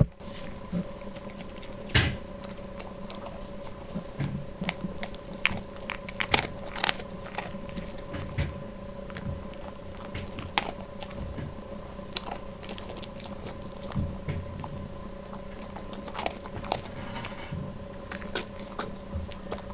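Rough collie crunching and chewing a dog biscuit and picking the crumbs off a carpet: irregular crunches and clicks, a few sharper than the rest.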